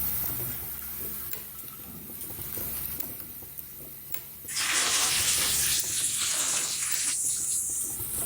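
Automatic plastic zipper slider-mounting and combining machine running with a steady low hum. About four and a half seconds in, a loud, even hiss starts suddenly and runs until near the end.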